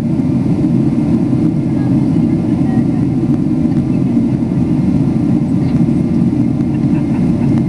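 Steady low roar inside the cabin of a Boeing 777-200 jetliner in flight: engine and airflow noise.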